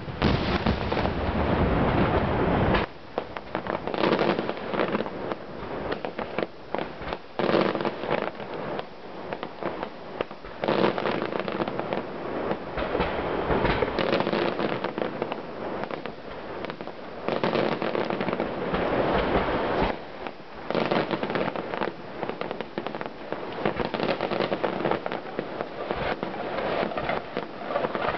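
Aerial fireworks display: a rapid barrage of shell bursts with deep booms in the first three seconds, then waves of dense crackling from many small reports as glittering stars fall, swelling and easing every few seconds.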